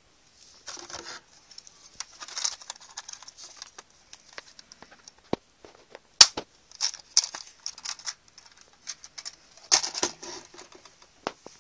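Small plastic model-kit parts being handled and fitted together: a scattered run of light clicks and rustles, with one sharp click about six seconds in.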